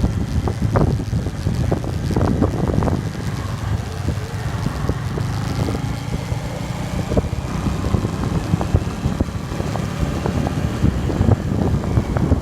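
Wind buffeting the microphone of a bike riding downhill, a steady rumble with frequent short rattles and knocks.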